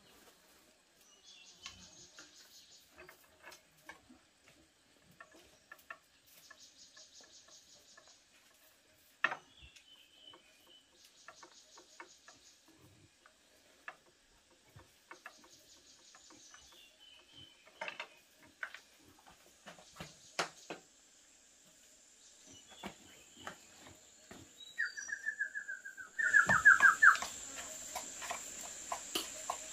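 A metal spoon clinking and scraping in bowls and a wooden pestle tapping in a small wooden mortar, heard as scattered clicks and knocks, over short rhythmic runs of insect chirping every few seconds. Near the end a bird call falls in pitch and a louder steady high insect drone comes in.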